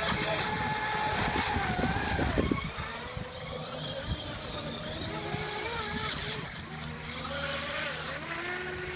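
Brushless electric RC boats running fast on a lake, their motors whining in pitch lines that rise and fall as the boats speed up, turn and pass. Loudest in the first couple of seconds, then more distant.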